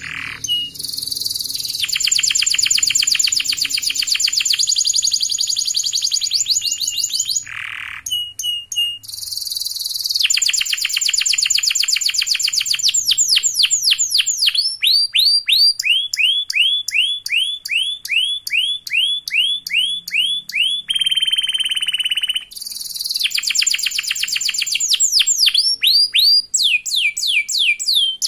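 Domestic canary singing a long, loud, unbroken song: fast rolling trills, long runs of falling whistled notes at two to three a second, and about three-quarters of the way through a single held whistle lasting over a second.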